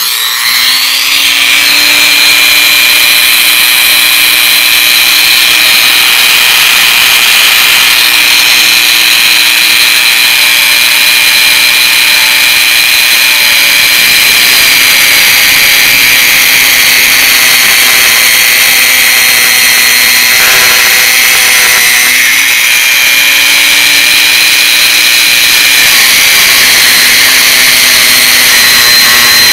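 Variable-speed Dremel rotary tool with a 90-degree right-angle attachment, spinning a plastic-rated cutting wheel at relatively low speed to cut a lengthwise slot in a molded plastic HVAC cover. It gives a loud, steady whine that starts up suddenly at the outset, its pitch sagging slightly now and then as the wheel bites into the plastic.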